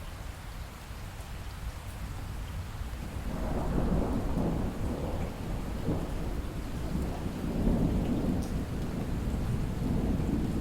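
Light rain with scattered drips, and a long roll of distant thunder that swells about three seconds in and keeps rumbling, rising and falling, to the end.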